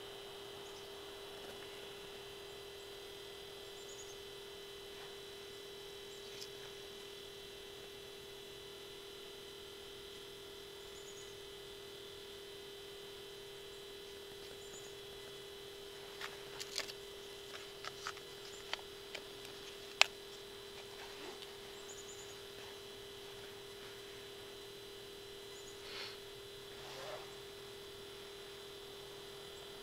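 A steady electronic hum with a faint high whine above it. A scatter of small clicks and taps comes about two thirds of the way in, the sharpest a single click near the middle of that run.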